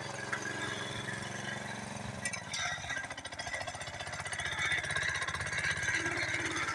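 Small single-cylinder petrol engine of a walk-behind mini tractor running under load as it pulls a plough through soil, with a fast, even beat. It grows louder about four seconds in.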